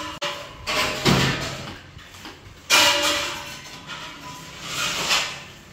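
Background music that swells and fades at uneven intervals, with a sharp rise at each swell.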